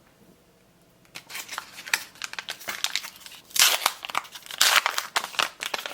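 A trading-card booster pack wrapper being torn open and crinkled by hand, starting about a second in, with the loudest rips and crackles near the middle.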